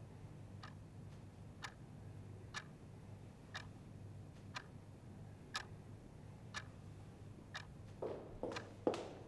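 A clock ticking slowly and evenly, about once a second, over a low room hum. A few louder, duller knocks come near the end.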